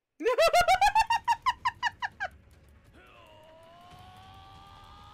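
Anime episode soundtrack: a rapid run of about fourteen short, high-pitched calls, about seven a second and fading over two seconds. About a second later comes a steady held tone that slowly rises a little.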